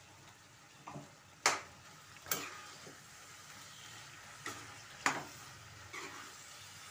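A steel spatula stirring a tomato and greens curry in a black nonstick kadai, knocking and scraping against the pan about five times over a faint frying sizzle.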